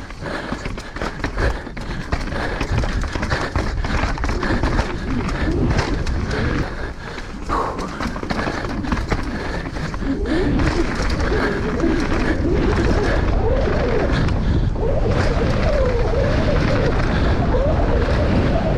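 Downhill mountain bike ridden over rough trail: wind rushes over the microphone, with constant knocks and rattles from the bike over the terrain. A wavering tone comes in about halfway through.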